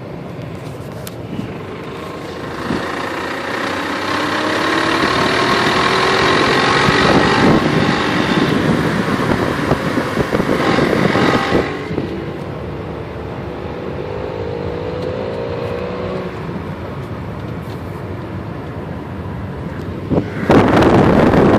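Volkswagen Jetta VR6 engine running and rising in speed twice, dropping back in between, with a knocking that the owner calls strange. A loud rushing noise comes in briefly near the end.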